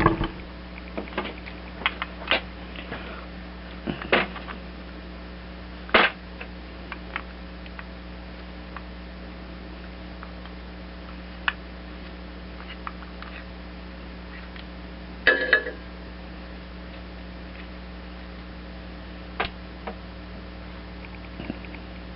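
Scattered light clicks and taps of small carburetor parts and hand tools being handled, with one louder metallic clatter that rings briefly about fifteen seconds in, over a steady electrical hum.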